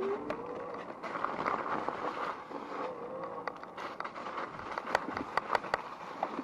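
Rize Blade 2 electric bike being ridden: steady rolling and rattling noise from the bike over rough ground, with a short rising whine at the start and a run of sharp clicks and knocks about five seconds in.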